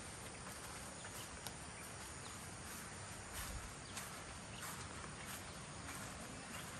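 Footsteps of someone walking across a grassy lawn, soft irregular steps over a steady outdoor background hiss.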